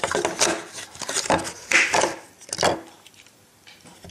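Plastic wrapping being pulled off a Beyblade launcher grip: a few short bursts of crinkling and scraping in the first three seconds, dying down near the end.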